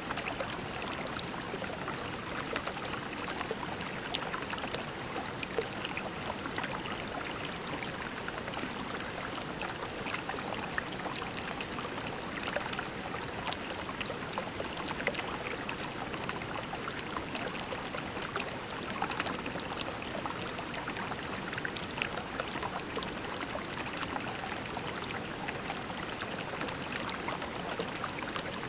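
Shallow creek water running over pebbles in a steady babble, with many small splashes and droplet ticks on top.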